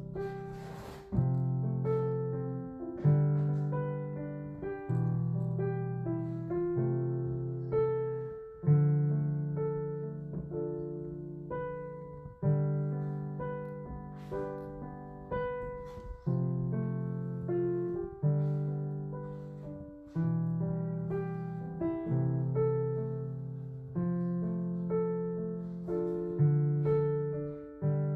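Background piano music: a slow, gentle piece of struck notes that fade away, with the chords changing every second or two.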